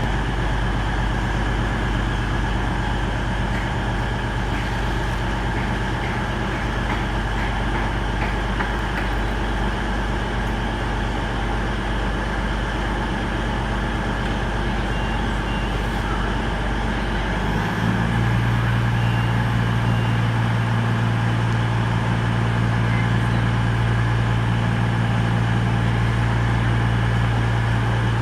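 Diesel train engine running steadily with a low hum; about 18 seconds in, the engine note steps up and grows louder.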